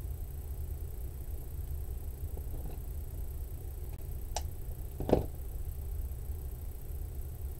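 Ribbon being handled and cut with scissors: a few faint rustles, a sharp snip about four and a half seconds in, then a louder knock as the scissors are put down on the cutting mat, over a steady low hum.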